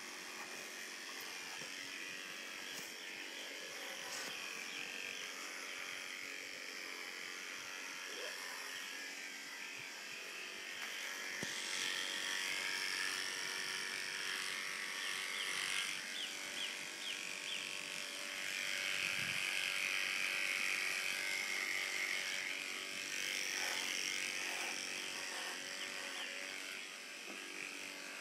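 Electric horse clippers running with a steady buzz as they shear a horse's coat, the buzz growing louder about twelve seconds in and easing off near the end.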